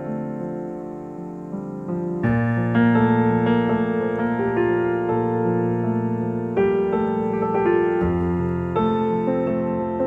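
Slow piano music with held chords. A fuller, louder chord comes in about two seconds in, and new chords follow every two to four seconds.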